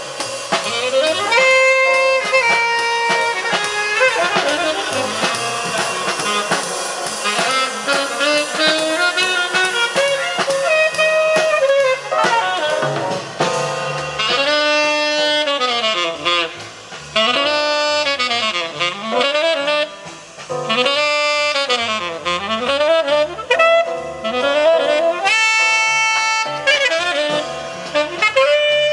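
Jazz music with a saxophone lead, played back through Dynaco A-10 bookshelf loudspeakers driven by a Technics SE-A100 stereo power amplifier.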